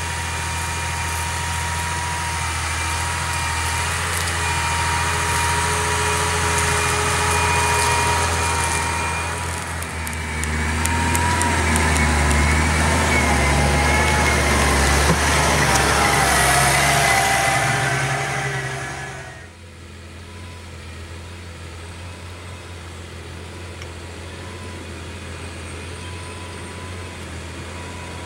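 Massey Ferguson 6465 Dyna-6 tractor engine running under load while pulling a cultivator through the soil, with a steady whine over the engine note. It gets louder as the tractor passes close by, its whine falling in pitch as it goes, then drops suddenly about two-thirds through to a quieter, steady hum.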